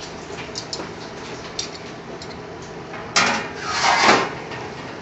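Heavy flat metal lid dragged across the rim of a clay tandoor to uncover the naan: a sudden scrape about three seconds in, then a second, longer scrape a second later, with a few light clicks before.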